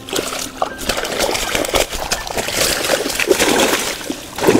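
Water splashing and sloshing in and around a mesh fishing keep net as it is lifted and stirred at the water's edge.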